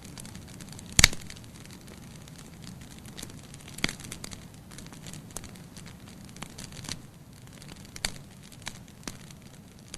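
Wood fire in a fireplace crackling: scattered sharp pops and snaps of burning firewood over a steady low rumble of the flames, the loudest pop about a second in.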